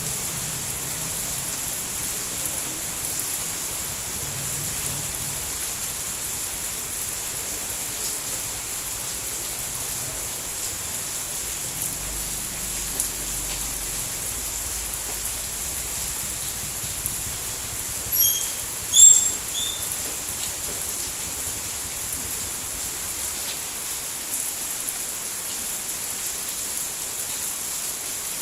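Steady, even rain hiss. About two-thirds of the way through, a few short high chirps briefly rise above it.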